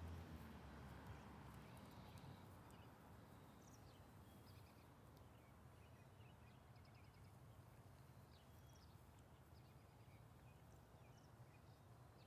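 Near silence: a faint low hum of outdoor background with scattered faint, short, high chirps of small birds.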